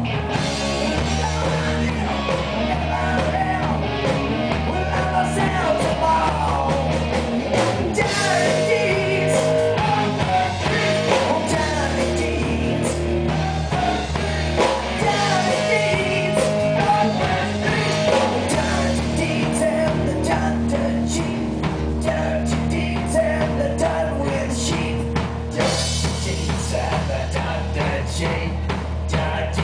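Live rock band playing: a male singer over electric guitar and a drum kit.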